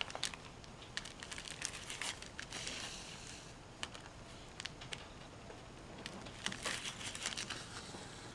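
Faint rustling of cloth and scattered soft ticks as a needle and wool yarn are pulled through fabric, stitch by stitch, in hand-embroidered satin-stitch filling.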